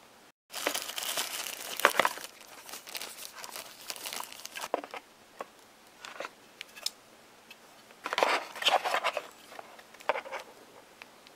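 Crinkling and rustling of packaging as hands handle a phone's battery and take a USB wall charger out of a cardboard box, with small clicks and taps in between. The crinkling is densest about half a second in and again near the end.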